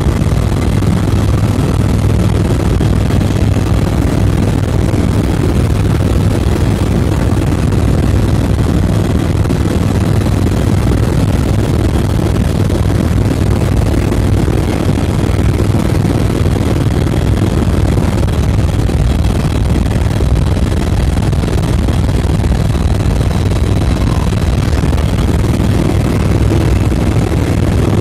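Helicopter engine and rotor running steadily in flight, heard from inside the passenger cabin as a loud, even drone with a strong low hum.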